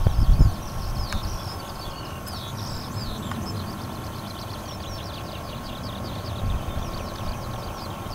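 Skylark song: a continuous run of rapid chirps and trills. Wind buffets the microphone underneath, in heavy low thumps during the first half second.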